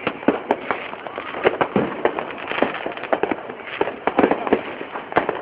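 Fireworks going off densely: many sharp bangs and pops in quick, irregular succession.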